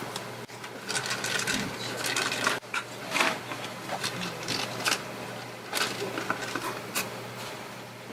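Irregular clicks, scrapes and rattles of an Apple AirPort Extreme router's parts being handled and pried apart by hand, over a steady low hum.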